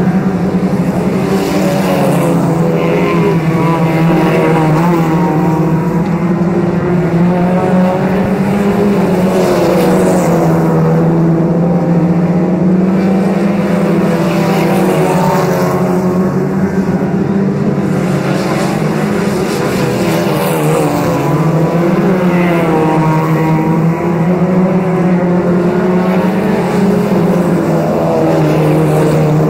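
Engines of several 1600 cc-class autocross cars running hard together in one continuous, overlapping drone, their pitch wavering up and down as the drivers accelerate and lift around the oval.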